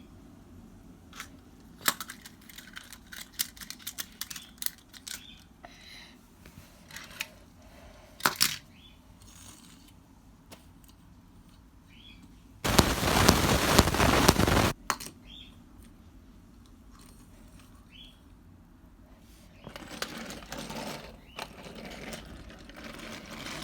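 Scattered clicks and knocks of plastic toy parts being handled, with one loud burst of rushing noise lasting about two seconds about halfway through.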